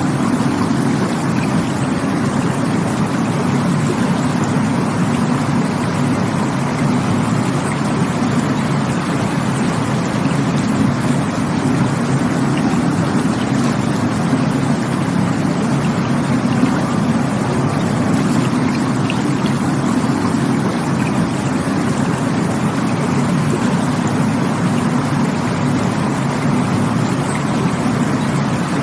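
Rushing water, a steady, unbroken rush with most of its weight in the low end.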